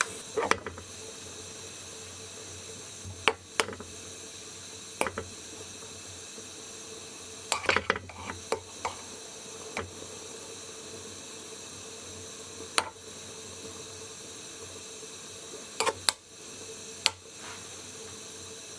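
Nabe pot of broth with grated daikon, oysters and seri boiling: a steady hiss broken by irregular sharp pops of bursting bubbles every second or few.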